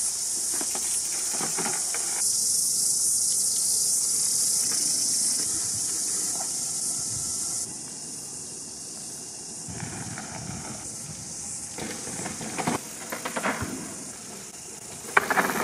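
A steady high-pitched insect chorus fills the first half and stops abruptly at a cut. Later come uneven crunching bursts of a full-suspension mountain bike's tyres rolling and skidding on a dirt trail, loudest near the end.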